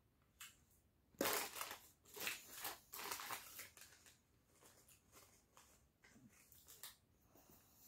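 Rustling and crackling noises in a quiet room, several close bursts from about a second in, then fainter scattered clicks.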